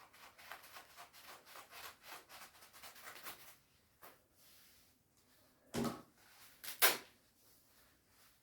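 Rustling of a shiny nylon down jacket's fabric as it is handled, in quick short strokes, then two louder knocks about a second apart.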